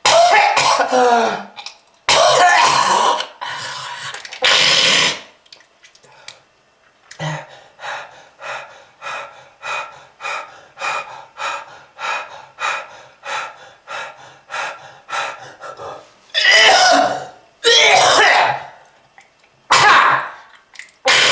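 A person in a hacking smoker's coughing fit. It opens with loud harsh coughs and throat-clearing, runs into a long string of short coughs at about two or three a second, and ends with more big, rasping hacks.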